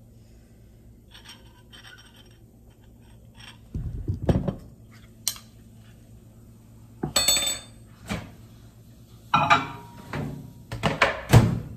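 A spoon clinking against a ceramic bowl, then a few knocks and clunks as the bowl is set into a microwave oven, the loudest near the end as the door shuts.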